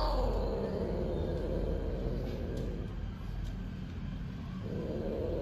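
Cat in heat yowling during mating, a long low drawn-out moan that sinks in pitch and fades, with a second low yowl starting near the end.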